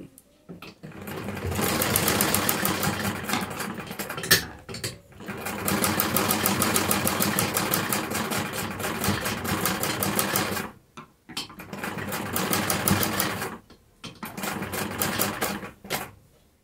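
Black domestic straight-stitch sewing machine running fast, stitching a fabric strip along an edge, in four spells with brief stops between them.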